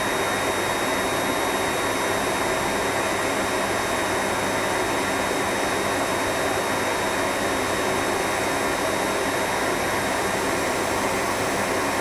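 An air blower running steadily, giving a constant rush of air with a faint high whine.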